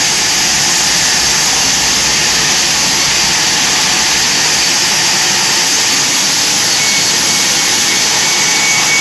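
Large sawmill band saw, driven by a belt-drive electric motor, cutting lengthwise through a thick wooden slab: a loud, steady rushing noise, with a faint thin whine near the end.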